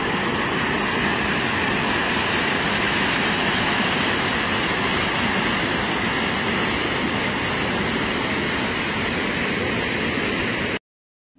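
Steady rush of water pouring over a dam's overflow crest, an even, hissing noise that cuts off suddenly near the end.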